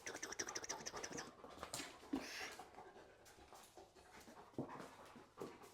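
Dog panting, fast and close for about the first second, then quieter, with scattered small clicks and knocks as it moves about.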